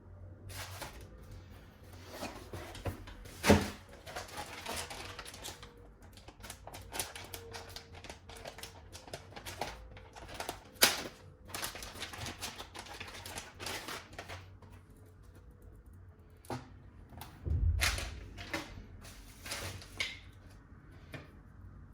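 Handling noise from unpacking a boxed router: packaging rustling, with irregular clicks and knocks, a sharp click about three seconds in and another about eleven seconds in, and a dull thump near the end.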